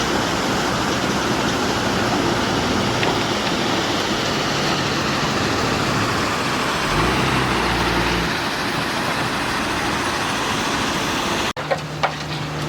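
Heavy construction machinery running, a dense, steady diesel engine noise, with a low rumble swelling briefly a little past the middle. Near the end the sound cuts off abruptly and gives way to a steadier low engine hum with two short knocks.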